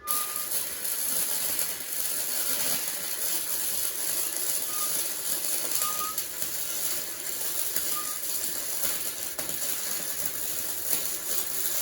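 Titanium Easy-Flux 125 flux-core welding arc running a bead on 16-gauge mild steel, a steady crackle that starts suddenly, with a few brief high chirps. The welder is set too hot and is blowing through the thin material.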